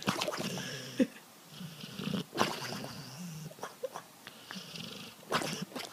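A dog snoring in its sleep, one noisy breath about every second, with a few short squeaky whimpers mixed in.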